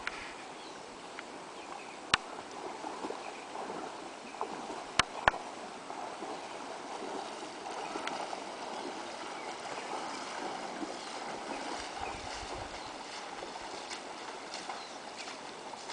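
A stream running steadily, with three sharp clicks: one about two seconds in and two close together about five seconds in.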